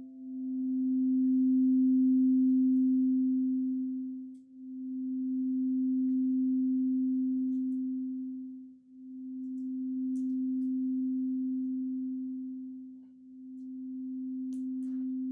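Quartz crystal singing bowl ringing on with a single pure tone around middle C, its loudness swelling and fading in slow waves about every four seconds.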